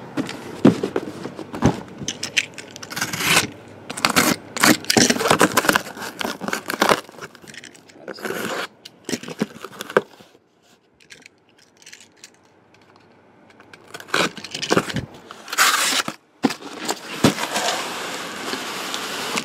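A sealed cardboard case of trading-card boxes being handled and turned: cardboard scraping and rubbing, crackles of packing tape, and scattered knocks, with a quieter stretch a little past halfway.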